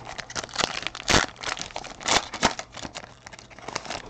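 Foil trading-card pack wrapper crinkling and tearing as it is pulled open by hand, a run of uneven crackly rustles, loudest a little after a second in.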